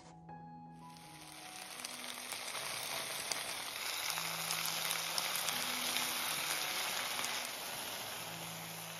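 Food sizzling as it fries in hot oil in a pan. The sizzle starts up under a second in, builds to its loudest in the middle and eases off a little toward the end.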